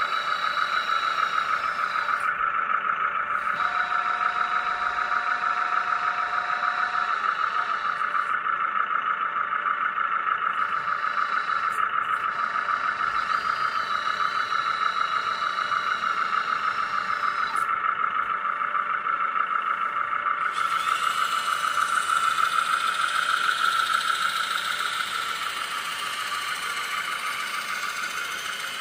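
Hydraulic pump of a Lesu MC15 radio-controlled scale hydraulic excavator whining steadily, its tone shifting slightly now and then; it gets quieter near the end.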